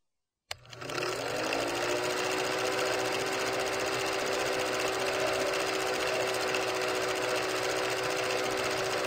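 Film projector sound effect: a click, then the projector's motor spins up and runs with a rapid, even clatter and a steady hum.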